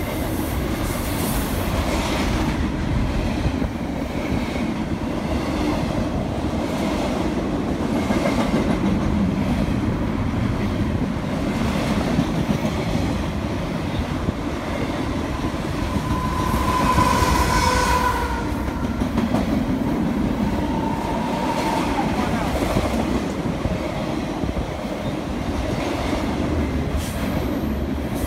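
Double-stack intermodal container cars of a freight train rolling past close by: a steady rumble and clatter of steel wheels on rail. About two-thirds of the way through, the wheels give a brief squeal.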